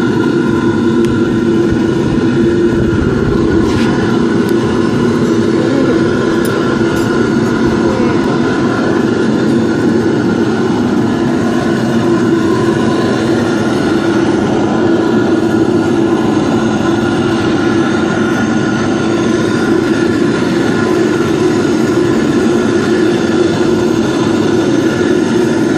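Aluminium melting furnace running: a steady mechanical drone with several held tones, unchanging throughout.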